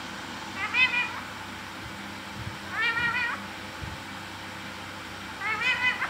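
Rose-ringed parakeet (Indian ringneck) giving three short wavering calls, each about half a second long and roughly two and a half seconds apart.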